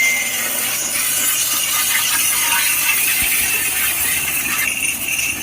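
Steady hissing spray of a pressure washer, as during an engine wash.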